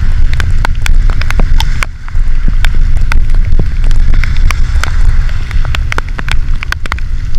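Heavy storm rain and gusting wind hitting the camera: many sharp drops tap on it while the wind buffets the microphone with a deep rumble that eases briefly about two seconds in.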